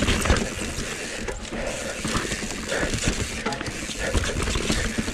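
Mountain bike riding fast down a rough dirt trail: tyres rolling and bumping over the packed dirt, roots and stones, with the bike clattering and rattling in a steady run of irregular knocks.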